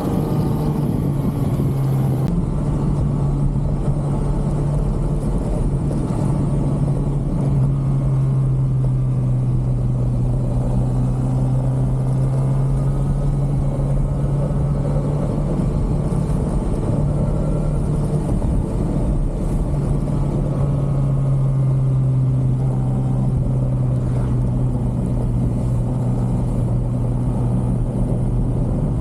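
Stock 2023 Kawasaki ZX6R's inline-four engine running at a steady cruise, its note stepping slightly up and down a few times, over a steady rush of wind and road noise.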